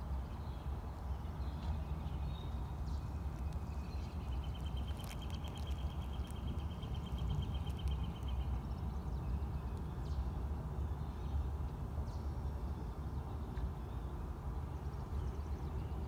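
Steady low rumble with a faint bird trill over it: a rapid, even run of notes lasting about four seconds, starting about four seconds in, with a few faint chirps around it.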